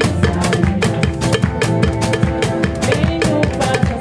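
Live band music driven by a drum kit, with a busy, even run of snare, bass drum and cymbal strokes over sustained instrument notes.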